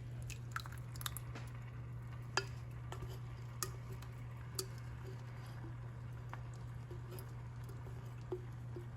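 A kitchen utensil clinking and scraping against a sauce container and a pan as pasta sauce is emptied in: scattered light clinks and taps at irregular intervals over a steady low hum.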